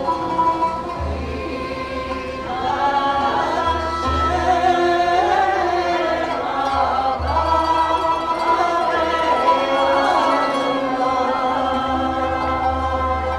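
A mixed community choir of men and women singing a piyyut, a Jewish liturgical hymn, together over instrumental accompaniment.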